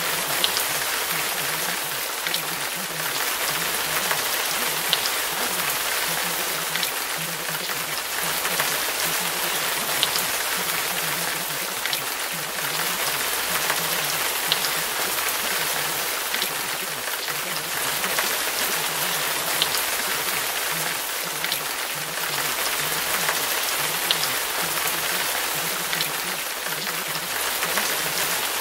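Steady rain falling, a dense even hiss with a sharp drip tick every couple of seconds.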